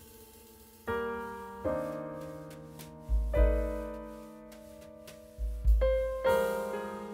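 Background piano music: slow single notes and chords, each struck and fading away, with a few deep bass notes.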